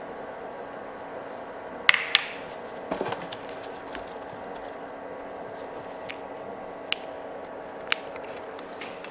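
A silicone spatula stirring baking soda into molten caramelized sugar in a frying pan for dalgona, with sharp clicks of the spatula against the pan, the loudest pair about two seconds in and a few single ones later, over a steady hum.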